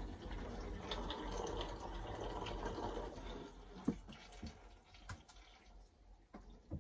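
Water being sprayed onto the deck above, heard from inside the cabin as a muffled hiss and patter, a water test to find where a deck leak comes through. The spray stops a little past halfway, leaving a few faint knocks.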